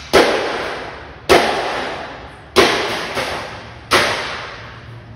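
Breakable objects being smashed down hard, four crashes about 1.3 seconds apart, each followed by a clatter of breaking pieces that dies away.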